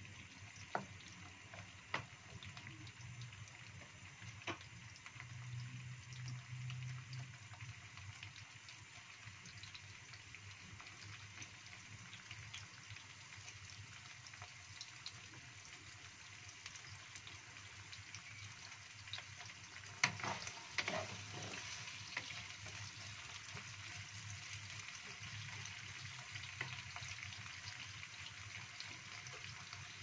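Sliced shallots, garlic and bird's-eye chillies frying in a little oil in a non-stick wok: a soft, steady sizzle. A few sharp knocks come in the first seconds, and a louder cluster of them about twenty seconds in.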